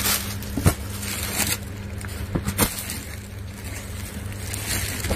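Plastic packaging rustling and crinkling as a suit piece is pulled out and its fabric shaken open, with a few sharp crackles in the first few seconds, over a low steady electrical hum.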